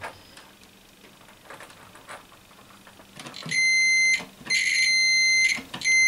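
Digital multimeter's continuity buzzer beeping three times, a steady high tone each time, starting a little past halfway, as the test probes bridge two wires of a microphone lead: the sign of a closed circuit between them.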